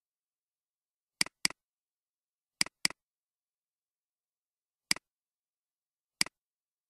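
Computer mouse clicking: two quick pairs of clicks, then two single clicks, each a sharp press and release.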